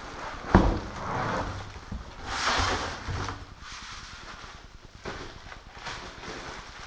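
Plastic bag crinkling and rustling as a bag-wrapped loudspeaker is lifted out of a cardboard box, with a sharp knock about half a second in.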